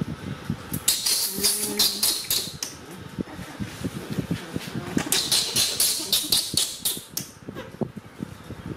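Disposable diaper crinkling as it is handled and fastened, in two bursts of rustling: one about a second in and a longer one about five seconds in.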